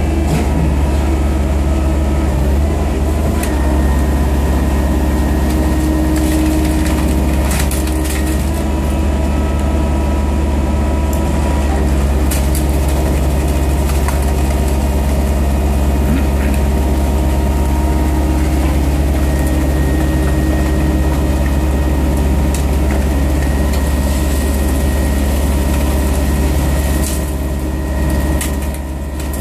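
Ecotecnica Orca S5250P car baler running: a loud, steady low engine drone, with a few sharp knocks now and then.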